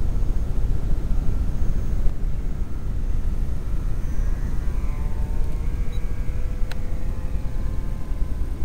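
Wind rumbling on the microphone, with the faint whine of an electric RC model Cessna 182's motor and propeller that rises in pitch about four seconds in and then holds steady. A single sharp click near the end.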